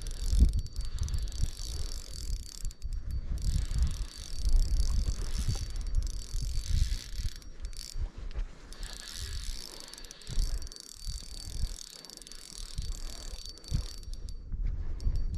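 Fishing reel being cranked to bring in a hooked trout, its gears clicking and whirring, with a low rumble underneath.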